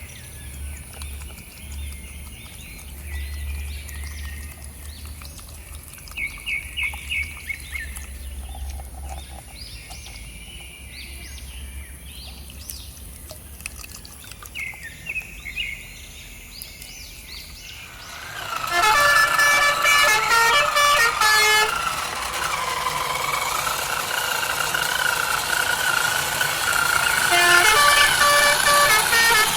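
Short bird-like chirps over a low hum, then, past the middle, loud repeated toy-truck horn toots from an RC truck, with the pitched tones sounding again near the end.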